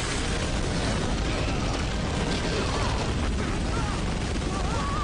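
Cartoon sound effect of a steady, heavy rumble of crashing rubble and debris, from a seismic blast tearing through a room. Voices cry out over it in the second half.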